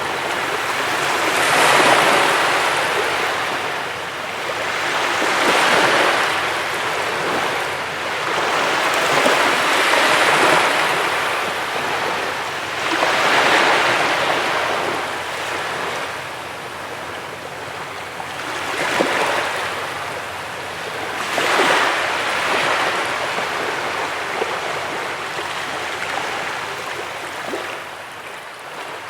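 Waves breaking on a beach: a wash of surf that swells and falls away every few seconds.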